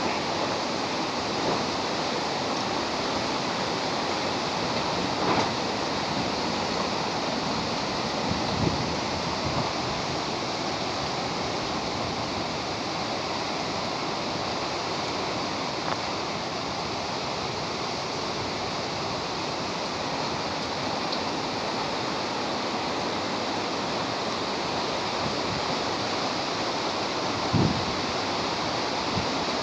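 Steady rushing noise of a storm, with a few faint knocks, the clearest near the end.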